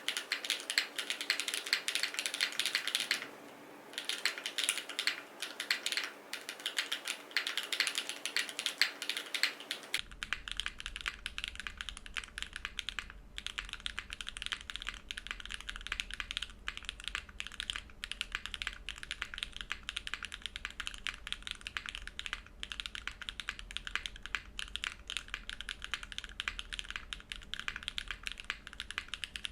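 Continuous fast typing on a Vertex Arc60 mechanical keyboard with an aluminium plate, no foam, JWK Catmint switches and GMK doubleshot ABS keycaps: dense click-clack of keystrokes, with a short pause about three seconds in. From about ten seconds in, a low hum runs under the typing.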